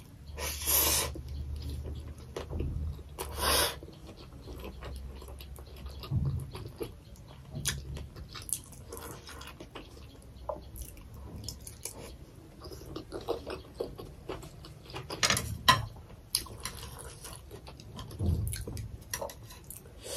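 Close-miked, mukbang-style eating: wet chewing of steamed chicken momo dumplings, with small crackly mouth clicks throughout and several louder bites and smacks.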